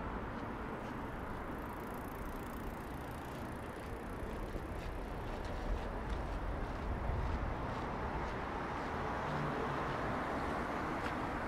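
Steady street traffic noise of passing cars, swelling slightly about four seconds in.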